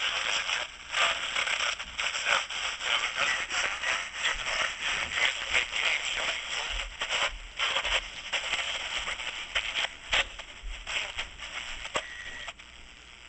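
Static and crackle from a Hamilton Universal Six six-transistor AM pocket radio as its tuning wheel is turned between stations, with a steady high whistle near the end as a station comes in.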